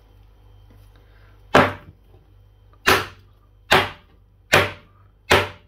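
Frozen chicken wings knocked against a wooden chopping board: five sharp knocks, roughly a second apart. The wings are frozen solid and stuck together in a clump.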